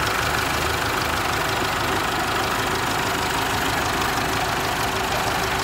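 Chevrolet S10's 2.8 MWM four-cylinder turbo diesel idling steadily with an even diesel clatter, heard close over the open engine bay.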